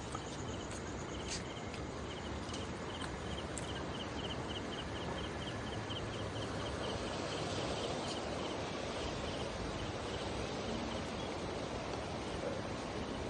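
Steady outdoor rushing noise, with a rapid high-pitched pulsing chirp at about four pulses a second that stops about nine seconds in.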